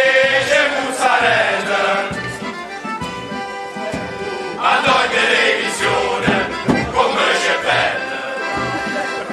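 A group of men singing a traditional folk song together in chorus, accompanied by accordion, with a low regular beat underneath.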